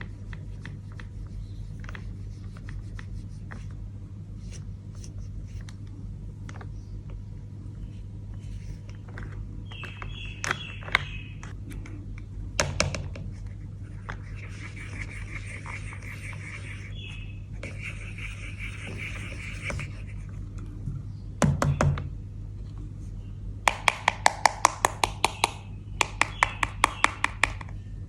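Small plastic toy pieces being handled: scattered light clicks and scrapes over a steady low hum, a louder knock about three-quarters of the way through, then a quick run of sharp clicks, several a second, near the end.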